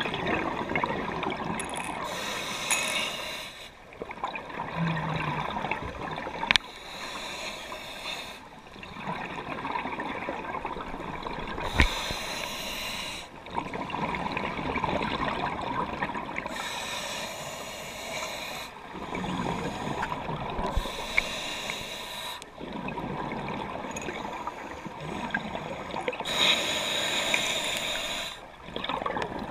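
Scuba diver breathing through a regulator underwater: a hissing breath drawn in and a rush of bubbles breathed out, repeating in a slow, uneven cycle with short lulls. A few sharp clicks stand out, the loudest about twelve seconds in.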